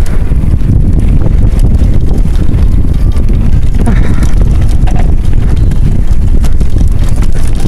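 Mountain bike ridden fast down a dirt trail: a steady, loud rumble of wind buffeting the microphone and tyres on dirt, broken by short rattling knocks as the bike goes over bumps and roots.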